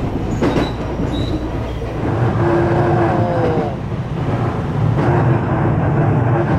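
The running noise of a 225-series electric train, heard from inside the carriage: a steady rumble of wheels on rail, with a few clicks near the start and a short whine about three seconds in.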